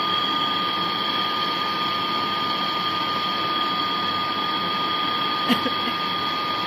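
Brazing torch flame burning steadily against a copper refrigerant pipe joint: a constant rushing hiss with a steady whistling tone running through it. A short click about five and a half seconds in.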